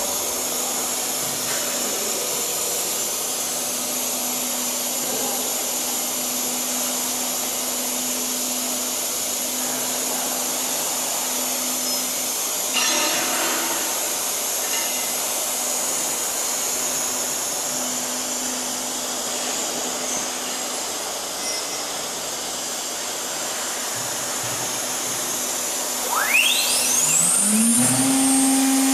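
Steady machine noise from a CNC drilling and milling machine for aluminium profiles, with a short clatter about halfway through. Near the end the spindle motor spins up: a rising whine that settles into a steady high tone over a low hum, and the sound gets louder.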